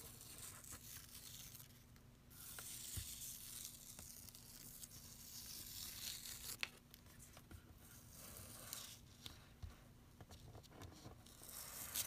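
Masking tape being peeled off the paper border of a drawing: a faint ripping hiss in several slow pulls of a second or more, with one sharp tick a little past halfway.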